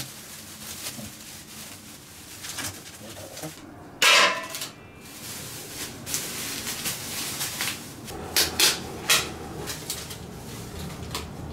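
Clatter and knocks of parts and tools being handled. One sharp knock comes about four seconds in and three quick clicks around eight to nine seconds, over soft rubbing and shuffling.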